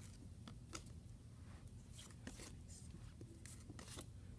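Trading cards being handled and flicked one behind another, making faint irregular clicks, about two or three a second, over a low steady hum.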